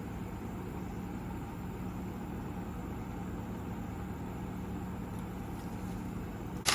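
Ebac 15 dehumidifier running with a steady hum, its refrigerant charge so low that the gauge reads almost no gas. A short sharp hiss comes near the end.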